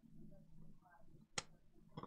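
Near silence: faint room hum, with one sharp click a little past the middle.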